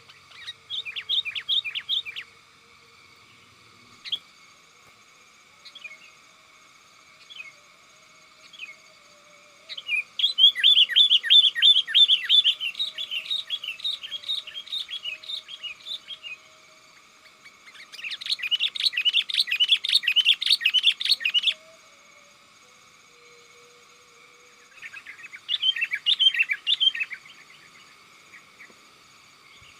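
Sooty-headed bulbul (kutilang) calling in four bursts of fast, chattering chirps: a short one at the start, a long one from about ten seconds in, another around eighteen seconds, and a shorter one near the end, with single notes between. This is the vigorous 'calling companions' song used as a lure for wild bulbuls.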